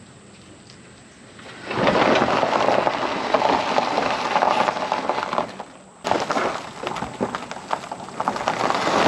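Gravel crunching and popping under the tyres of a small pickup truck as it rolls slowly forward across a gravel drive, starting faint and growing loud about two seconds in.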